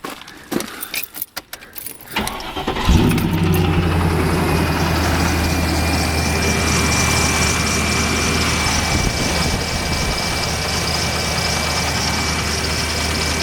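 A few clicks from the key, then a Land Rover Discovery II's 3.9-litre V8 cranks briefly and catches about three seconds in. It settles into a steady cold idle with a thin high whine over it. The engine carries a knock, or tick, from cold, which a local mechanic put down to a failed big-end bearing while the owner suspects the valve gear (rockers or lifters).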